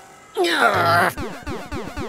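Cartoon sound effects over music: a long falling-pitch slide about half a second in, then a quick run of short descending sweeps.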